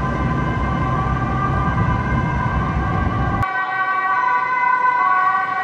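Tram wheels squealing on curved track: a loud, steady, high-pitched squeal of several tones that waver slightly. Under it a low rumble drops away about three and a half seconds in.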